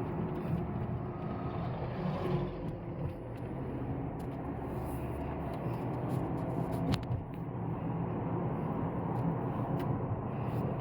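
A car driving, its engine running steadily with road and tyre noise. Scattered small clicks and rattles, and one sharp knock about seven seconds in.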